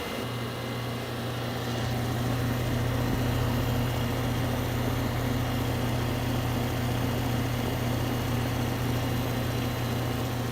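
Goodman air-conditioner condensing unit running: the compressor gives a steady low hum under the whoosh of the condenser fan. It is running on a fresh top-up of R22 refrigerant, with the suction pressure brought just over 60.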